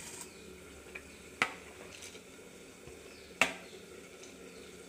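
Grated coconut being scraped by hand from a plastic plate into a steel mixer-grinder jar: a few light clinks, two of them sharp knocks on the jar about two seconds apart, over a faint steady background.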